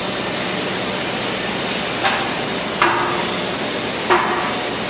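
Metal ladder cart of aluminium diamond plate and steel tubing clanking three times as it is lowered and laid out on a concrete floor, the second and third clanks ringing briefly. A steady hiss runs underneath.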